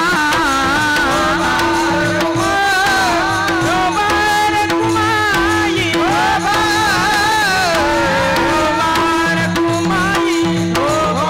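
Devotional kirtan music: a singer with a richly ornamented, gliding melody over a steady held drone note, with tabla-style hand drumming keeping the rhythm.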